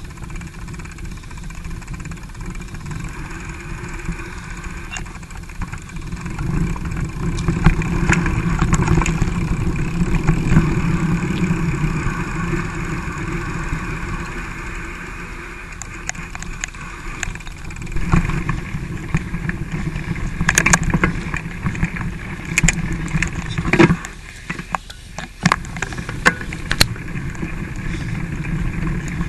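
Mountain bike riding over a rough dirt singletrack: a steady low rumble of tyres and frame, with sharp knocks and rattles from bumps in the trail, coming more often in the second half.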